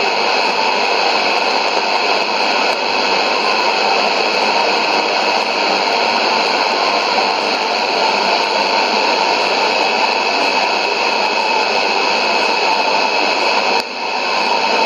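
Steady hiss and static from a Sony ICF-2001D shortwave receiver tuned to 15560 kHz in AM mode, with no speech or music heard. The level dips briefly near the end.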